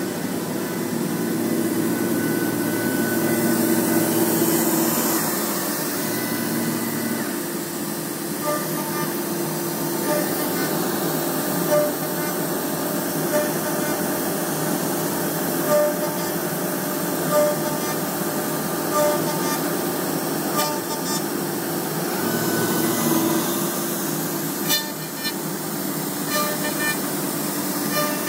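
A MultiCam CNC router spindle runs with a dovetail bit, cutting dovetail joints into the edge of baltic birch plywood drawer parts: a steady machine whine and hum with brief louder surges every second or two.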